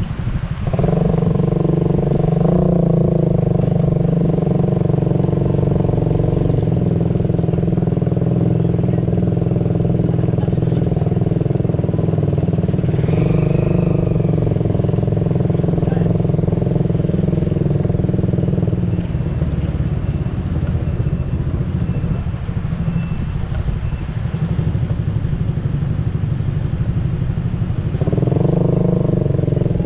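A vehicle engine running at a steady pitch. It drops back about two-thirds of the way through and comes up again near the end.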